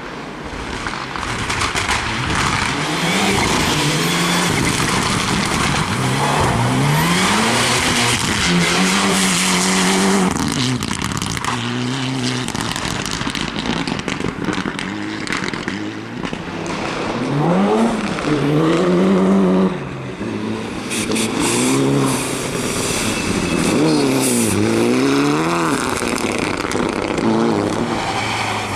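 Rally cars running flat out on a stage, engines revving hard with the pitch repeatedly climbing and dropping through gear changes and lifts, over the hiss of tyres.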